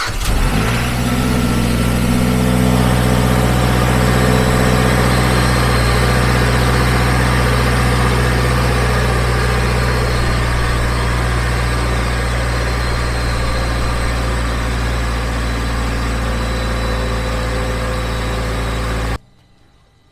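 Mazda 3 MPS (Mazdaspeed3) turbocharged 2.3-litre four-cylinder engine, just started and idling steadily. It cuts off suddenly about a second before the end.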